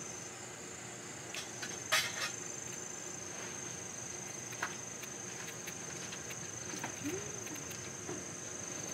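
Kitchen knife peeling a raw potato by hand: faint scrapes and small clicks of the blade through the skin, the sharpest about two seconds in. A steady high insect drone runs underneath.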